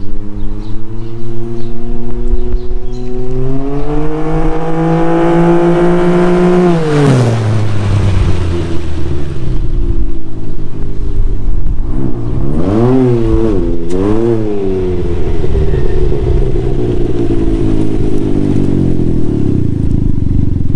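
Can-Am Ryker three-wheeler's engine through a BKD Ground Pounder aftermarket exhaust, accelerating with its pitch climbing for about seven seconds and then dropping off. About twelve seconds in the revs are blipped twice, then the engine runs steadier and winds down as the bike slows.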